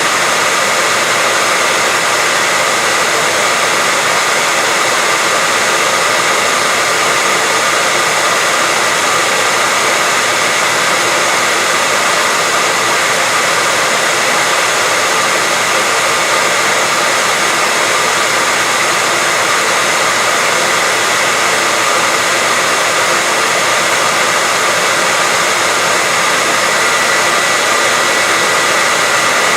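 Steady white-noise hiss, even and unbroken, weighted toward the high end, with a faint steady high whistle inside it.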